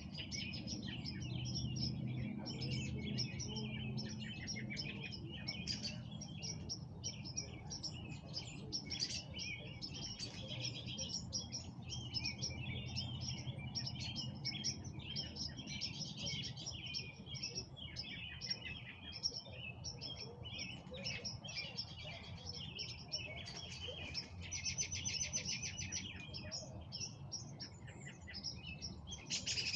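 Many songbirds chirping and singing over one another in a sunset chorus, with a fast, even trill about 25 seconds in. A low steady rumble runs underneath.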